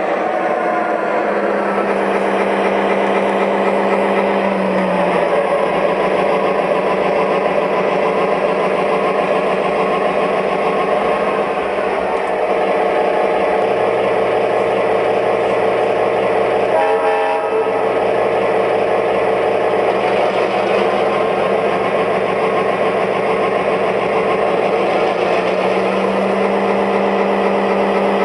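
O-gauge model train running on ScaleTrax track: the diesel locomotive's sound-system engine rumble over the steady rolling of the wheels and cars. Low hums in it change pitch a few times.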